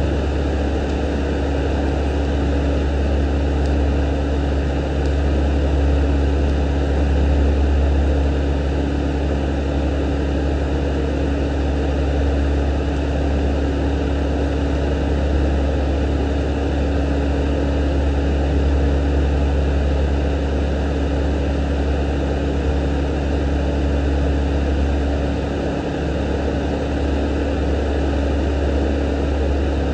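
A steady low hum with a constant higher tone above it, unchanging throughout.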